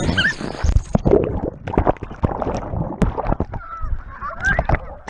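Water sloshing and gurgling heard through a camera dunked underwater about a second in, muffled, with many short thumps and splashes as it moves through the water.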